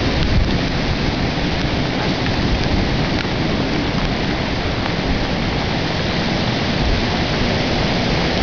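Hurricane Sandy's storm wind: a steady gale rushing through tree branches and leaves, with a low rumble from the wind buffeting the microphone.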